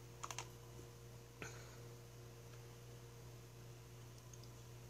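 Computer mouse clicking while a picture is chosen from thumbnails: a quick pair of clicks just after the start and a single click about a second and a half in, over a faint steady low hum.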